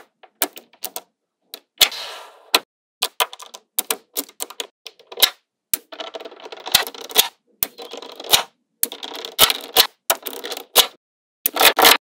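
Small magnetic balls clicking and snapping together as they are set in place, in sharp irregular clicks and short rattling runs that come thicker in the second half.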